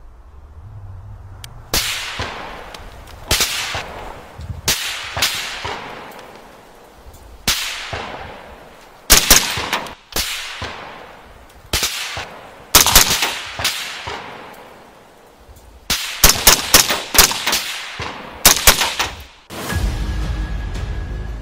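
AR-15 rifle in 5.56 firing single shots and quick strings of two to four, each crack ringing out with a long tail. Steady music comes in near the end.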